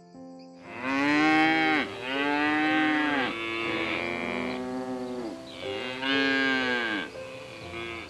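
Bovine mooing: four drawn-out moos, each rising then falling in pitch, the third quieter than the rest, over soft background music.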